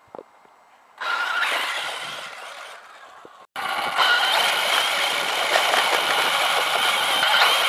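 Kyosho Inferno VE electric RC buggy driving over grass: its brushless motor and drivetrain whine with tyre and wind noise, starting about a second in and fading as it pulls away. After a brief cut, the whine and noise run on steady and louder.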